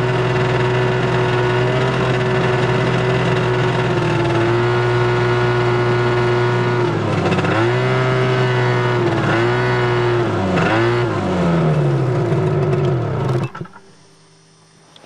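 Ski-Doo Elan 250 twin-cylinder two-stroke snowmobile engine running steadily as the sled rides along the trail, its pitch dipping and picking up again a few times with the throttle. Near the end it slows, falling in pitch, and then stops abruptly.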